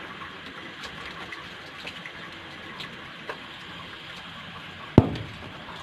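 Steady hiss of rainwater, with faint ticks of drips and one sharp knock about five seconds in.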